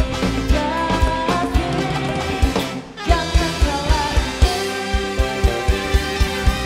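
Upbeat pop title theme music with a steady drum beat under a melody; it drops out briefly about three seconds in, then comes back with drum hits about four a second.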